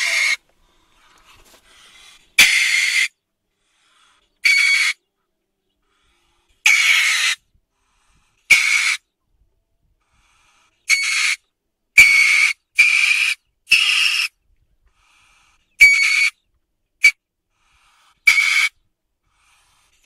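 Weasel giving a series of short, high-pitched screeching calls, about a dozen, each roughly half a second long, spaced irregularly with silent gaps between.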